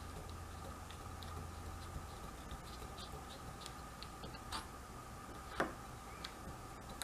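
Faint scratchy ticks and clicks of a hand-turned pin vise drilling with a No. 57 wire-gauge bit through a drill guide into a model locomotive chassis, with one sharper click about five and a half seconds in. A faint steady hum runs underneath.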